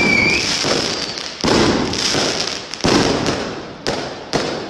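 Fireworks and firecrackers going off close by. A firework's falling whistle ends just after the start, then a dense crackle of firecrackers swells up with fresh loud bursts about every second and a half.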